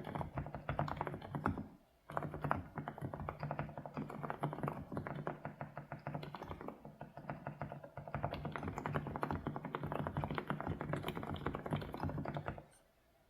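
Fast, continuous typing on a mechanical keyboard: a dense run of key clicks with a brief pause about two seconds in, stopping shortly before the end.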